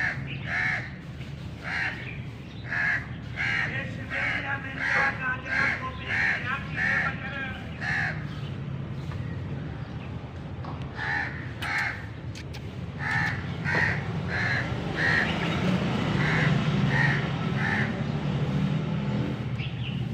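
A crow cawing in runs of short, evenly spaced calls, about two a second: a dozen or so calls, a pause of a few seconds, then another run of about ten. A steady low rumble runs underneath and grows louder near the end.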